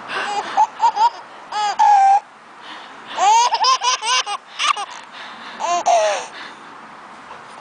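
A baby laughing in short, high-pitched bursts, in three spells, dying away about six seconds in.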